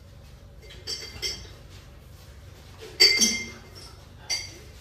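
Kitchen utensils and dishes clinking against each other: four short, sharp clinks that ring briefly, the loudest about three seconds in.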